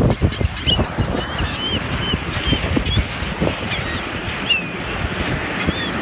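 A flock of seagulls calling as they circle: many short, high cries, several a second, overlapping one another.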